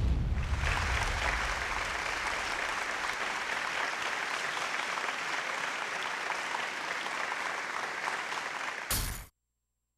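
Sound effect under an animated logo: a low boom at the start, then a dense, even crackling noise that cuts off suddenly about nine seconds in.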